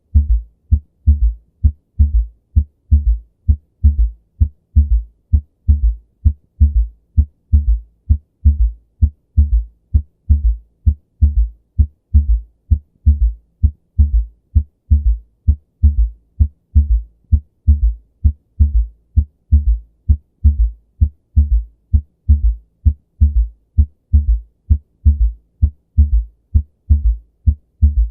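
Recorded human heartbeat, low thumps repeating in a steady, regular rhythm, presented as an abnormal heart sound.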